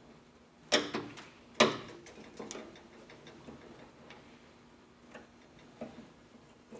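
Metal retaining clips of an old beltline weatherstrip snapping out of a truck door as they are pried free with a clip removal tool: two loud sharp snaps close together near the start, then a few lighter clicks.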